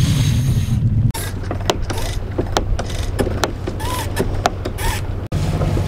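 Sailboat winch ratcheting, with sharp irregular clicks about three to four a second as a line is winched in, over a steady low hum. Wind noise on the microphone fills the first second.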